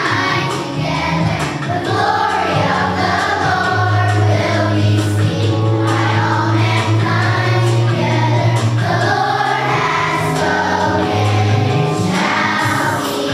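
Children's choir singing together over instrumental accompaniment with long held low notes.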